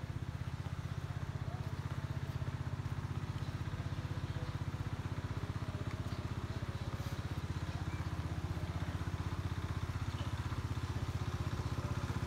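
Small motorcycle engine running at a steady speed: a low, even, fast pulsing that holds without revving up or down.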